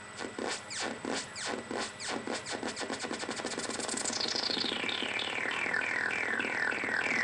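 Doepfer A-100 modular synthesizer (A-110 oscillator through an A-141 voltage-controlled envelope) playing repeated falling electronic zaps that speed up from about three a second to a rapid stream as its knobs are turned. About four seconds in, the sweeps start lower and get shorter, turning into a fast buzzy warble.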